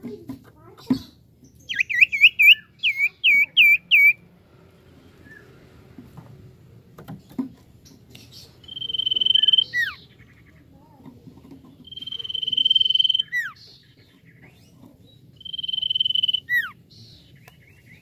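Common iora (cipoh) singing: a quick run of about six looping chirps, then three long steady whistles, each swelling in loudness and ending in a sharp falling note.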